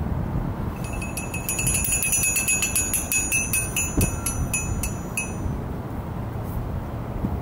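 Small ringing metal percussion struck in a quick run of repeated strikes for about four seconds, each strike ringing on the same few high pitches, then stopping. A single low thump lands near the middle, over a steady low background rumble.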